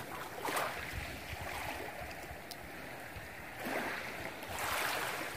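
Sea water washing and lapping in the shallows, swelling softly a few times.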